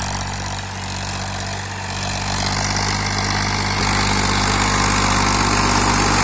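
Powertrac 434 DS Plus tractor's 39 hp diesel engine running steadily under load while pulling a disc harrow through the soil. It grows louder from about two seconds in as the tractor draws near.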